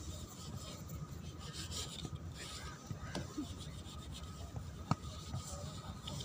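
A cloth rubbing and wiping the outside of a uPVC pipe, with scuffs of hands handling the pipe and one sharp click about five seconds in.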